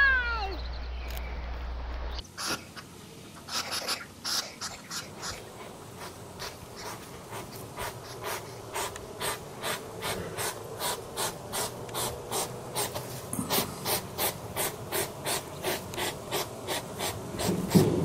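Hedgehog snuffling and sniffing as it forages with its nose in grass, a steady run of quick sharp sniffs, about three a second. The first moment holds a few short falling chirps over a low hum.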